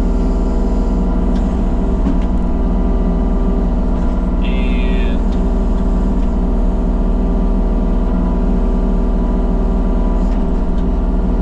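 An engine running steadily at a constant speed, with no revving.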